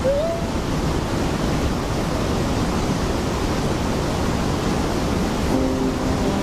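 Fast, shallow river rushing over rocks and riffles: a steady wash of water noise. A steady hum of several tones comes in about a second before the end.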